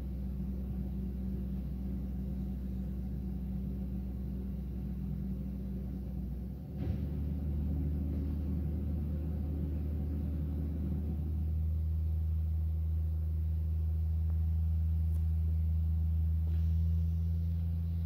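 Heil garbage truck's engine running steadily at raised revs, a deep drone. A brief click comes about seven seconds in, and from about eleven seconds the note drops slightly and grows louder.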